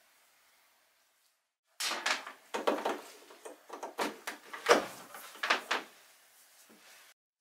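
Near silence for almost two seconds, then a run of irregular knocks, clicks and rustles as a power cord is handled and its plug pushed into a wall socket.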